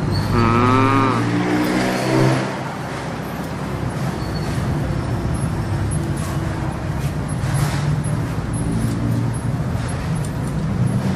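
A motor vehicle engine running steadily in the background, a low hum, with a brief wavering tone in the first couple of seconds.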